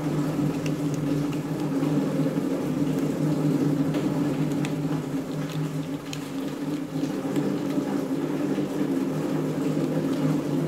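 A steady low hum with a few fixed pitches fills the background, and a few faint light clicks come from a precision screwdriver working tiny screws out of a phone's plastic frame.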